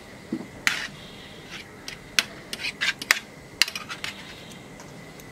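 Metal spoon and fork clinking and scraping against a baking tray and a serving platter as cooked snapper fillets are lifted across; a scatter of light, irregular clicks.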